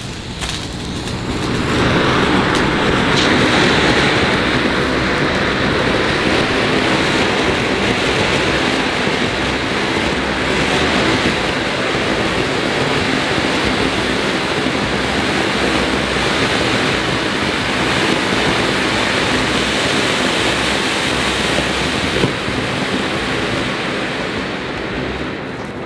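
Large Cock-brand Rang Baraat fountain firework (anar) burning: a loud, steady rushing hiss of spraying sparks. It swells over the first two seconds and dies away near the end.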